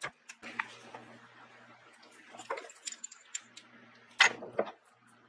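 Scattered light clicks and knocks of metal parts and tools being handled, with a louder pair of knocks about four seconds in.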